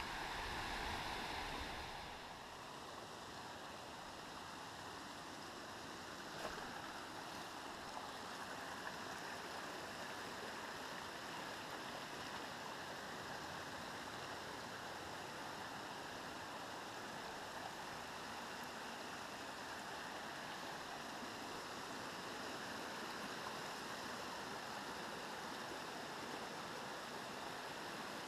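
Steady rush of a rocky mountain stream running over stones, a little louder and deeper for the first two seconds or so.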